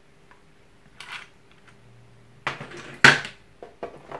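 Hard plastic accessory tray and carry case knocking and clattering as they are handled: a faint rustle about a second in, then a cluster of sharp knocks from midway, the loudest about three seconds in as the tray is set down on the table.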